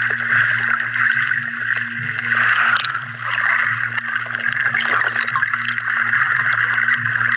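Muffled underwater sound picked up by a camera in a waterproof housing: a steady watery hiss with a constant low hum beneath it and scattered faint clicks.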